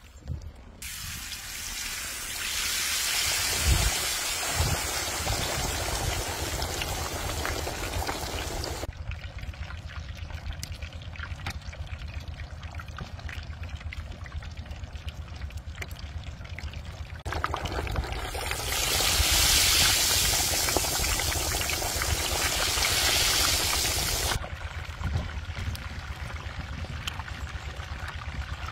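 Water splashing and sloshing in a steel bowl as a whole raw chicken is lifted, dunked and rubbed by hand, with many small wet squelches. Twice the water rushes louder for several seconds, like pouring, then drops back to quieter splashing.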